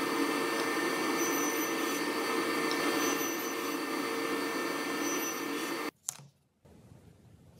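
Sliding table saw running steadily with a whine while a block of wood is pushed through the blade. The saw sound cuts off suddenly about six seconds in, leaving a much quieter background with a brief tap.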